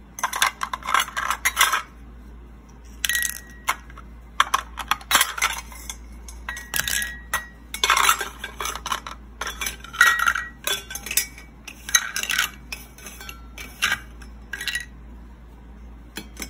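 Small metal tongs and a ladle clinking and scraping against a miniature pot as plastic toy food is lifted out, in repeated clusters of sharp clicks with brief metallic ringing and short pauses between.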